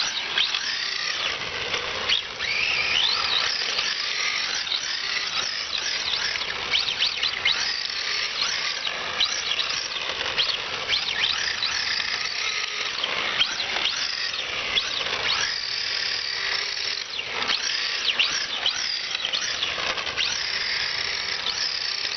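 Tamiya TL-01 RC car's 19-turn brushed electric motor and gears whining, the pitch rising and falling over and over with throttle as the car drifts. The drivetrain has just been repaired of a gear grind.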